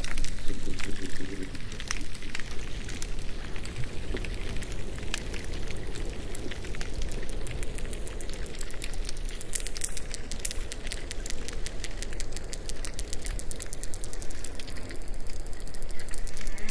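Underwater hydrophone recording of bottlenose dolphins: trains of echolocation clicks over a crackling, hissing background, with a fast, even run of clicks through the middle.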